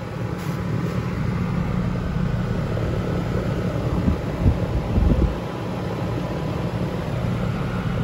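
R-410A air-conditioner condensing unit running just after start-up: a steady low hum of the compressor and outdoor fan, with a couple of brief low thumps about four and a half and five seconds in.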